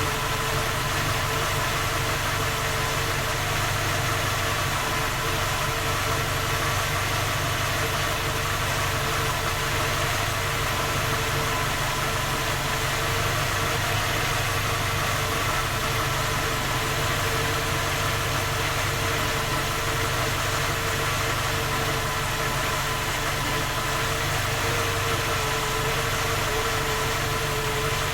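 Skoda Octavia A5 1.6 MPI petrol engine idling steadily with a knock, a knock the owner says comes with the engine cold and that three engine repairs have not found or cured.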